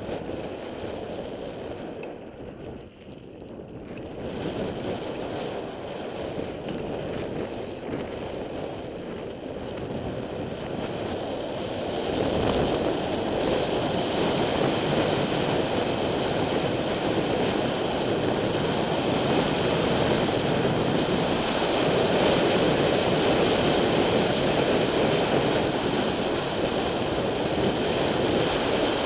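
Wind rushing over a helmet-mounted camera's microphone, mixed with the rolling noise of a mountain bike's tyres on a dirt trail during a descent. The noise grows louder about twelve seconds in and stays loud.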